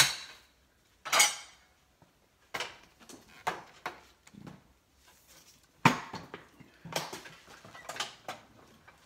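Sharp metal clanks and knocks, about seven strong ones with lighter rattles between, from a steel drywall lift being lowered and handled after a ceiling panel has been screwed up.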